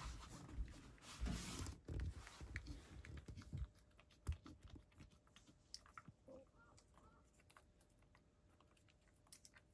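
A cat eating from a shallow wooden dish: faint, quick clicking and chewing sounds. They come thick and fast for the first three seconds or so, then thin out to scattered clicks.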